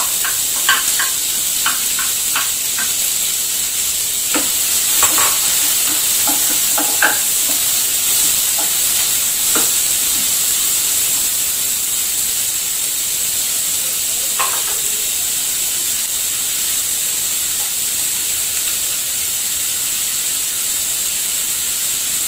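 Chopped onion, green chilli and curry leaves sizzling in hot oil in a kadai. Short clicks and scrapes of stirring against the pan come over the first ten seconds and once more about fourteen seconds in.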